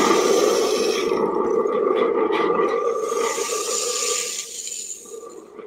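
Wooden rain stick tipped upright, pebbles pouring through it in a steady rushing hiss, mixed with the rumbling, ringing sound of a hand-held spring thunder drum played as storm thunder. Both fade away near the end.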